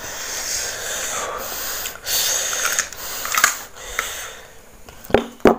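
Heavy breathing in and out through the mouth from the burn of a very hot chili sambal, with no voice. A couple of short sharp sounds come near the end.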